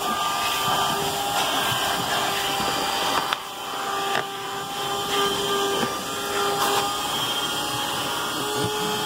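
Vacuum cleaner running with suction through a hose nozzle pushed across car floor carpet: a steady drone with a few sharp clicks.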